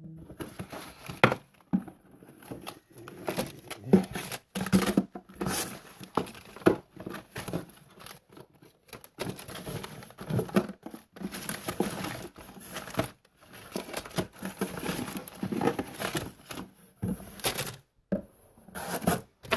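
Tackle packaging being handled, crinkling and rustling, with irregular clicks and crackles as packs of jig heads are sorted.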